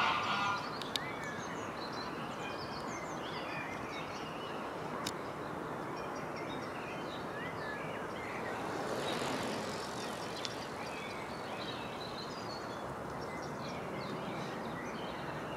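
Outdoor dusk ambience: a steady hiss of distant noise with many small birds chirping. About nine seconds in, a broad swell of noise rises and fades.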